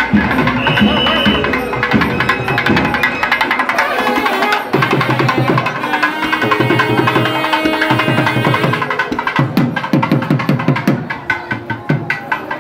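Thavil barrel drum beaten in quick rhythmic strokes, with a sustained melody played over it: South Indian temple music. Near the end the drum strokes stand out more clearly as the melody drops away.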